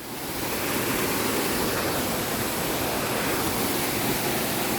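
A waterfall's steady rush of falling water. It swells over the first half second, then holds even.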